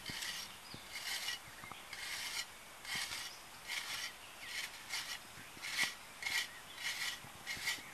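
Hand tool scraping soil in short repeated strokes, about a dozen of them, coming faster in the second half.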